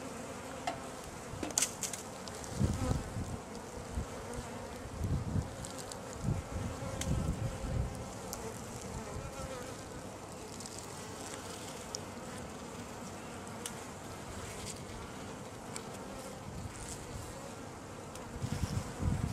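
A colony of honey bees buzzing steadily around opened brood comb, with occasional low bumps and rustles of handling.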